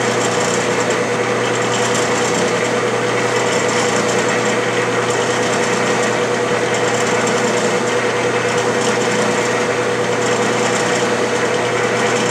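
Clausing metal lathe running steadily with the half-nut engaged, the carriage feeding along the lead screw on an Acme thread-cutting pass. It is a constant machine hum with a steady tone.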